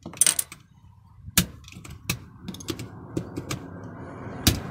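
Plastic keycaps of an old Logitech keyboard being prised off with a screwdriver: sharp plastic snaps and clicks, a quick cluster at the start and single loud snaps about a second and a half in, around two seconds in and near the end. A low rumble builds in the background from about halfway.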